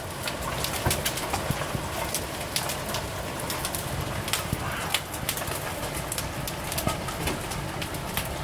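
Steady rain falling on a garden and a brick path just after a hailstorm, an even hiss scattered with many sharp ticks of drops striking.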